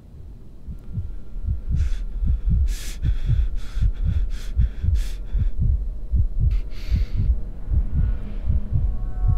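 A heavy, heartbeat-like pulse of deep thumps, about three a second, laid into the soundtrack as a tension effect. Short bursts of hiss pass over it in the middle.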